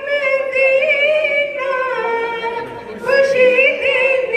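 A woman singing alone into a handheld microphone, holding long drawn-out notes, with a short dip in loudness about two and a half seconds in.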